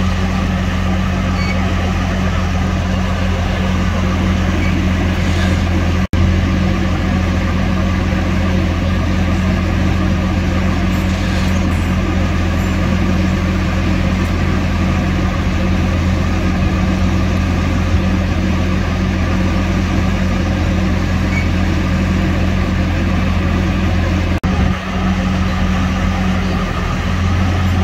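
Heavy truck diesel engine running steadily at a constant low speed, a deep even hum with a momentary break about six seconds in.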